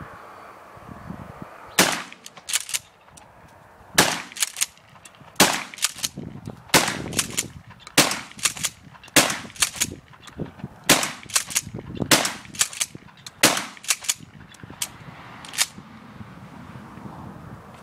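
Mossberg 590 pump-action shotgun fired in a rapid string of about nine or ten shots, roughly one every second and a half, with the fore-end racked between shots. Firing stops near the end.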